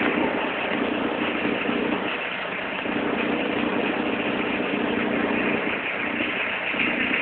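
Citroën Xantia 1.9 turbodiesel engine idling cold, with a low droning note that comes and goes every second or so over the steady running. It is the strange noise from the auxiliary belt area that shows at cold idle.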